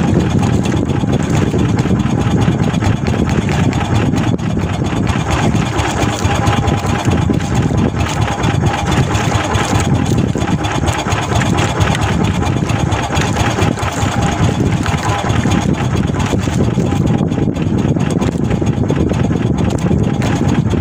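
Small fishing boat's engine running steadily at idle or low speed, a dense, even engine noise with a faint steady whine above it.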